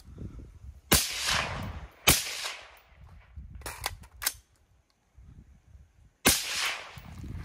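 AR-style rifle firing three shots: about a second in, a second later, and about six seconds in. Each has a long echoing tail. A few fainter sharp cracks fall around four seconds in.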